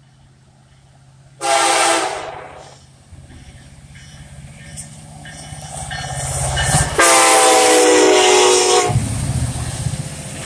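Air horn of a BNSF SD70ACe diesel locomotive sounding twice: a short blast about a second and a half in, then a longer, louder blast of about two seconds around seven seconds in. Between and after the blasts, the low rumble of the lead locomotives' diesel engines grows louder as they come alongside and pass.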